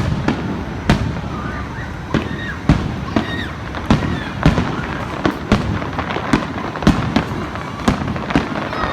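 Fireworks display: a rapid, irregular series of sharp bangs, roughly one or two a second, over a continuous rumble of bursts.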